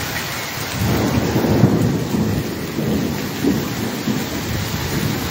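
Heavy rain mixed with hail pelting wet paving tiles, a steady hiss. About a second in, a low rumble builds and carries on beneath it.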